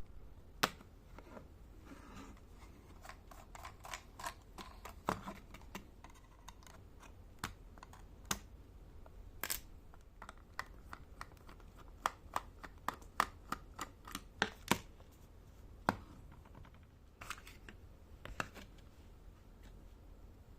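Irregular sharp clicks and taps of small hard plastic parts being handled, as a wireless computer mouse is worked on by hand.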